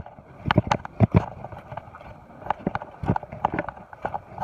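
Footsteps over rocks: irregular knocks and scuffs of shoes landing on stone, a few a second.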